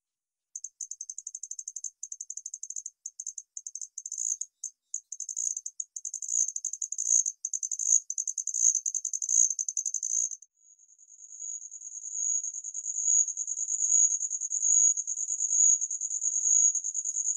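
Male Homoeoxipha nigripes, a tiny sword-tail cricket, singing a high-pitched song: rapid pulsed chirping that changes tempo with irregular breaks, then, after a short pause about ten seconds in, a continuous trill that swells in loudness. It is the male's courtship song to a female just behind him.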